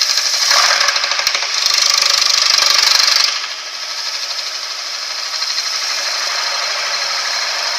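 CNC wood lathe cutting a spinning wooden workpiece, the tool shaving wood in a steady rasping run. The cut is loudest from about half a second to three seconds in, then settles to a steady, slightly lower level.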